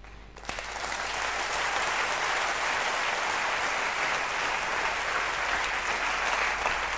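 A large audience applauding: the clapping breaks out about half a second in, builds over the next second, then holds steady.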